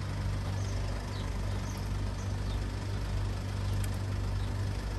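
A vehicle engine idling steadily, a low even hum.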